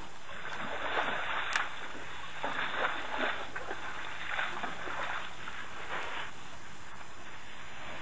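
Irregular sloshing and splashing of water and mud as an elephant herd drinks and moves at a waterhole, over a steady hiss. A single sharp click about one and a half seconds in.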